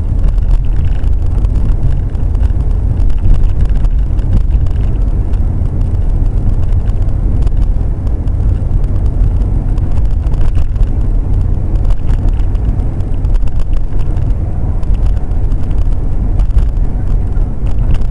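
Steady low rumble of a car's engine and road noise, heard from inside the car's cabin.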